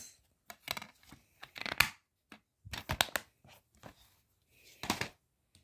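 Plastic DVD cases being handled: scattered clicks, taps and rattles as a case is closed and set down among the other cases.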